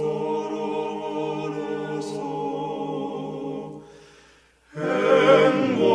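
A choir sings a Korean hymn, holding a long chord at the end of a phrase that fades away a little under four seconds in. After a brief near-silent gap, the voices come back in louder with the next phrase.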